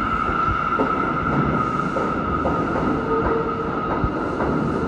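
New York City subway train running on the track, with a steady high-pitched tone over a low rumble and short wheel knocks at rail joints now and then.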